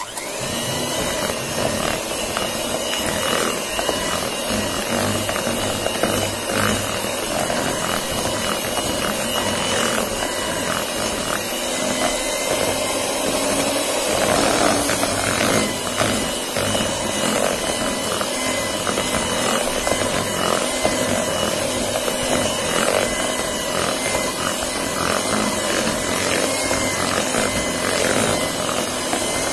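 Philips 300-watt electric hand mixer switched on at speed 3 and running steadily, its beaters whipping softened unsalted butter into fluffy buttercream in a plastic bowl. A steady motor whir with frequent irregular clicks as the beaters knock the bowl.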